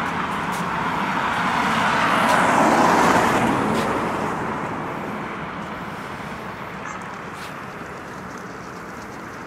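Road traffic: a vehicle passes close by, getting louder to its peak about three seconds in and then fading away, leaving the steady hum of more distant traffic.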